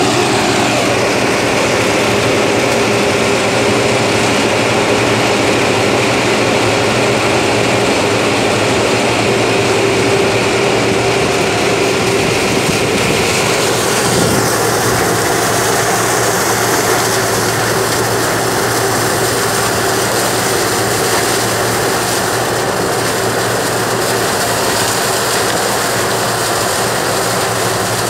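Sugarcane harvester running steadily while cutting cane: a loud, continuous engine and machinery drone. The higher hiss drops about halfway through.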